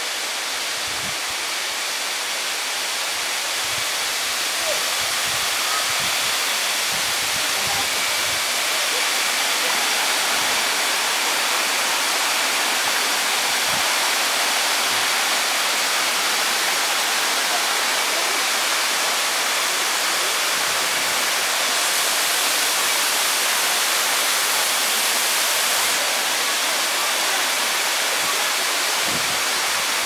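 Water rushing down a tiered waterfall's cascades: a steady hiss that grows a little louder over the first few seconds.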